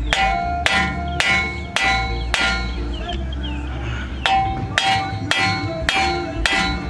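Hammer tapping the outer end of the CV axle shaft to knock it back and free it from the wheel hub: a steady run of ringing metal-on-metal strikes, about two a second, with a pause of about a second midway.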